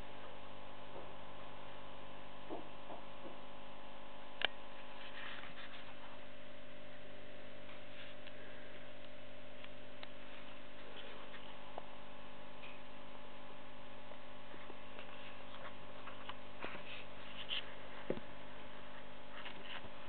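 Steady electrical hum made of several steady tones, with a few faint clicks, the sharpest about four and a half seconds in and another near the end.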